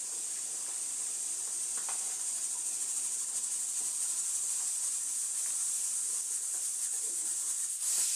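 Steady high-pitched hiss with no speech, rising slightly near the end.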